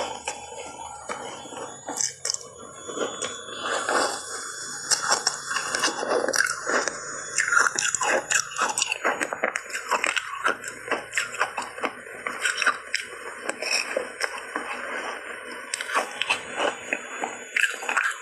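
Ice cubes coated in matcha powder being bitten and chewed: a rapid, continuous run of crisp crunches, busiest in the middle.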